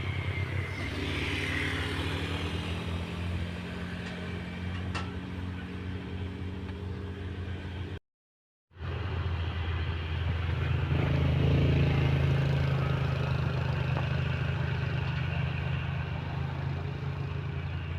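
Diesel engines of heavy earthmoving machines (an excavator and a bulldozer) running steadily as they work soil. The engine sound cuts out briefly near the middle, then comes back louder for a few seconds, as under heavier load.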